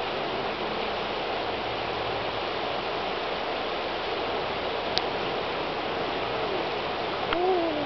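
Steady rush of the Russian River's shallow riffle running over rocks. There is a sharp click about five seconds in, and near the end a short rising-then-falling voice-like sound.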